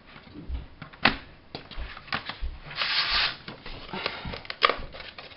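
Paper trimmer cutting cardstock: a short swish of the blade slid along the rail about three seconds in, among sharp clicks of the trimmer and rustling of the card being handled.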